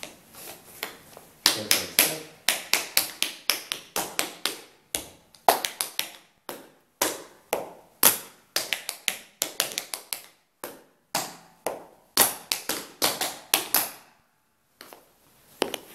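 Tap shoes striking a hard floor in a tap-dance sequence: a fast, uneven run of sharp metal taps, with a brief pause about ten and a half seconds in, stopping about two seconds before the end.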